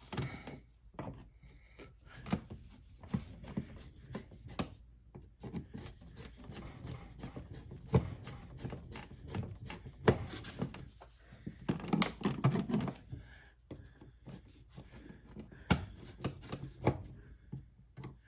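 Phillips screwdriver driving a light switch's mounting screws into an electrical wall box: irregular scraping, rubbing and small clicks of the screw and switch, busiest about ten and twelve seconds in.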